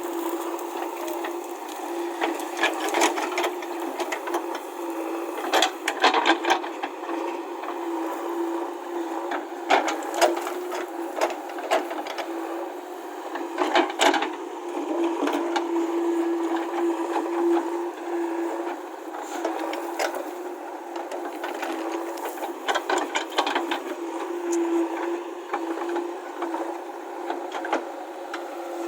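JCB backhoe loader running with a steady engine hum, with irregular clattering and cracking from gravel and stones being pushed and scraped along the road.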